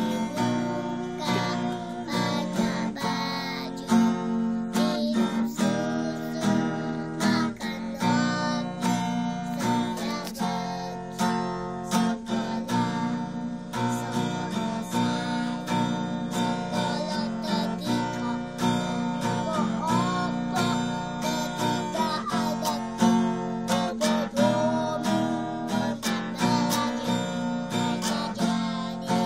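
Acoustic guitar strummed in a steady rhythm as accompaniment, with a young boy singing along.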